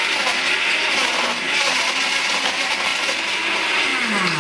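Countertop blender with a glass jug running on high, blending milk, ice, ice cream and chopped Snickers into a smoothie; its pitch falls near the end as the motor winds down.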